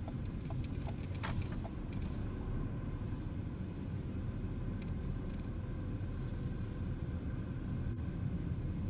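Inside a Ford car driving slowly: steady low engine and tyre rumble, with a few faint clicks in the first couple of seconds.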